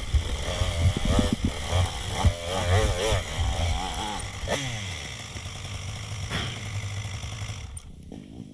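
Dirt bike engine revving up and down in quick swings while riding single track, sped up to double speed. About halfway through the revs fall away, and the engine runs lower and quieter to the end.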